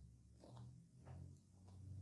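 Faint close-miked chewing of a mouthful of fast-food pie, slow and soft, with three or four faint moist clicks.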